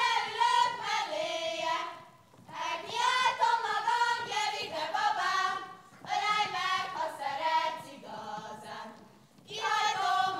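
A group of girls and young women singing a Hungarian folk song together without instruments, in phrases of two to three seconds with short breaths between them.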